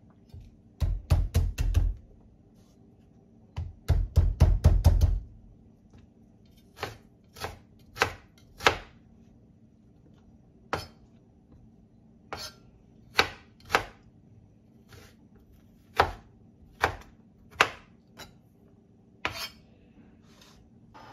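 Kitchen knife chopping on a bamboo cutting board: two quick runs of five or six strokes, then slower single chops about a second apart.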